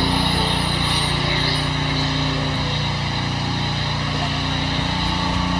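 Pressure washer spraying a jet of water onto a car body: the hiss of the spray over the steady hum of the machine's pump.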